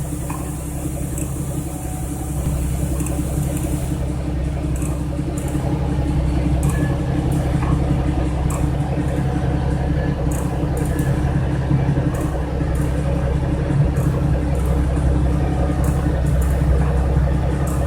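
Jeep Wrangler TJ Rubicon's 4.0 L straight-six running steadily, with light sharp clicks recurring about every half second to second from about four seconds in: the clicking at the driver-side rear wheel, which the owner suspects comes from the rear disc brake or the hub.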